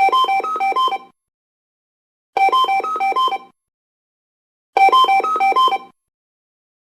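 Samsung SGH-Z130 mobile phone ringtone: a short electronic melody, a quick run of bright notes lasting about a second, played three times with a pause of just over a second between repeats.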